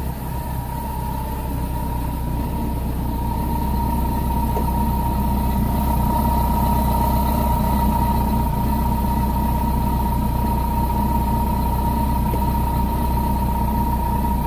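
Kawasaki Concours motorcycle's inline-four engine idling steadily, with a steady whine that gets a little louder about two seconds in.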